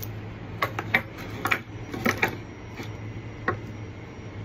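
Dog collars being handled and set down on a wooden table: a handful of sharp clicks and knocks from the metal cobra-buckle hardware, bunched in the first two and a half seconds with one more near the end.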